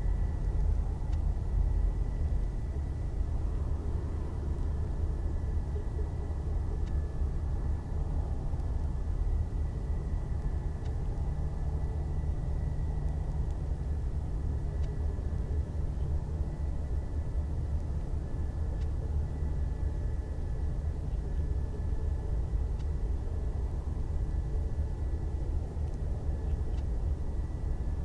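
Steady low rumble from an Airbus A320 being de-iced by spray trucks, with a thin, steady high whine above it.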